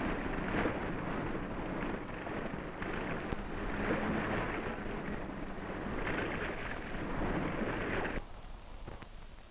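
Rushing wind and sea noise, surging and easing every second or two, that drops suddenly to a quieter hiss about eight seconds in.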